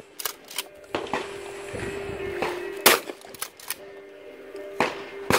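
Shotgun firing twice, about two and a half seconds apart, with several fainter gunshots in between.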